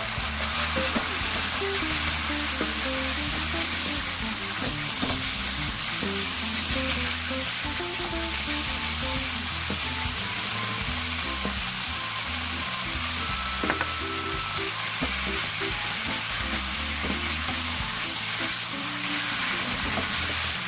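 Gochujang-marinated beef, onion and bell peppers sizzling in hot oil in a wok as they are stirred and tossed with a spatula, a steady frying hiss. Soft background music plays under it.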